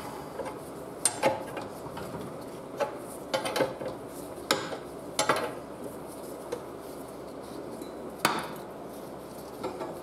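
Metal clinks and scrapes from a wrench turning a lawnmower crankshaft held in a crankshaft straightener. They come as scattered, irregular knocks, the sharpest about a second in and near the end.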